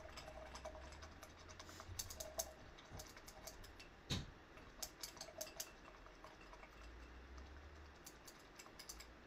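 Faint, irregular light clicks and taps over a low steady hum.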